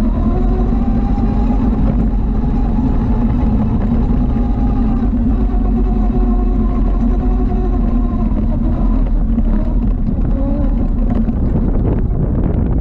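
Small ATV engine running steadily under held throttle, its pitch wavering slightly and dipping briefly near the end.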